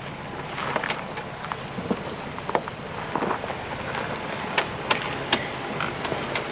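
Ford Bronco driving a rough dirt trail: a steady low engine and road rumble with scattered sharp clicks and knocks throughout.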